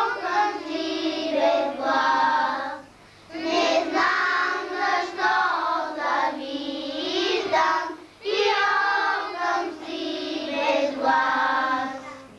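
A group of young children singing a song together in unison, in long phrases with short breaks between them, about three seconds in and again near eight seconds.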